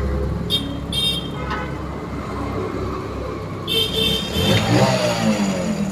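Road traffic passing close: vehicle engines running, with short high horn toots about half a second in, at one second, and again near four seconds, then an engine passing whose pitch sweeps near the end.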